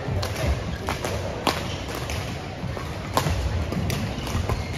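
Badminton rackets striking shuttlecocks: sharp cracks at irregular intervals from rallies on several courts. Under them run low thuds of players' feet on the court floor.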